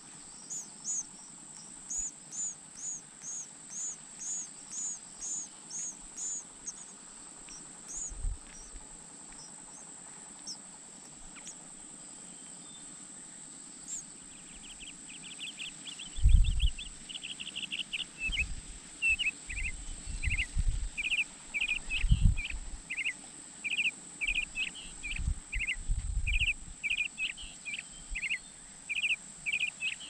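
American robin nestlings begging in a rapid run of high chirps from about halfway in, while a parent feeds them, with a few low thumps among the chirps. Earlier, a bird repeats a short high call about twice a second for several seconds. A steady high-pitched tone runs under it all.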